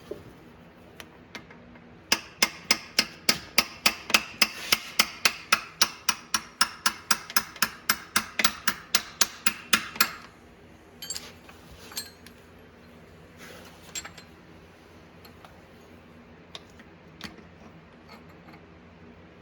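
A hammer striking metal about thirty times in a steady rhythm of about four blows a second, stopping about ten seconds in, then a few scattered clinks of tools and parts.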